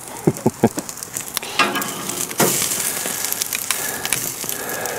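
Beef fat sizzling as a tied roast beef sears on a hot cast-iron grill grate, with a few clicks of steel tongs early on. The sizzle gets louder a little before halfway through.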